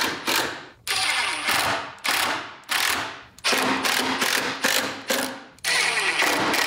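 A large plywood drawer tray being pushed in and pulled out several times on heavy-duty metal drawer slides, giving a rolling, rattling metal run about once a second.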